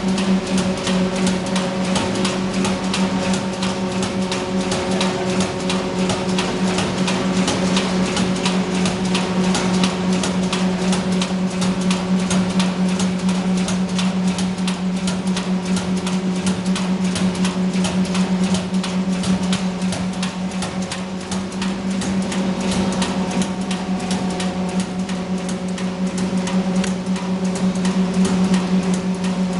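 Automatic vertical pouch-packing machine running: a steady electric hum under a fast, even clatter of its mechanism.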